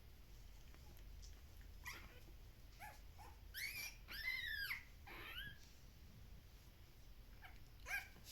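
Two-week-old Shiba Inu puppies whimpering and squealing: a few short high squeaks, then a louder run of arching whines about four seconds in, and two more short squeaks near the end.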